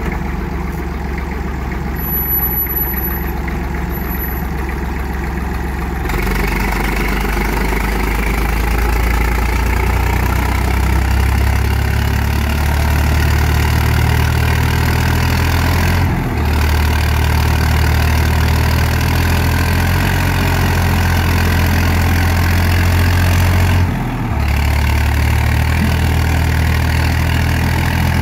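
IMT 533 tractor's three-cylinder diesel engine running steadily. About six seconds in it picks up and runs louder as it pulls a trailer loaded high with firewood, with two brief dips in the engine sound later on.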